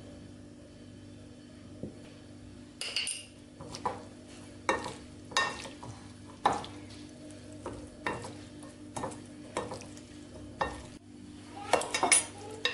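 Wooden spoon stirring and tossing a pearl couscous salad in a ceramic bowl: from about three seconds in, a run of scrapes and knocks against the bowl, roughly one every half second to second, with a quick cluster of louder clatters near the end. A faint steady hum runs underneath.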